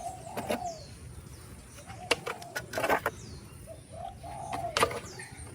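Dove cooing in the background, with small birds chirping faintly, and a few sharp clicks of plastic toys being picked up and set down.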